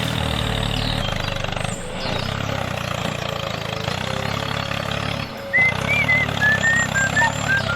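Small electric motor of a toy mini bulldozer running steadily with a low, even hum. From about five and a half seconds in, a run of short, high chirping notes joins it.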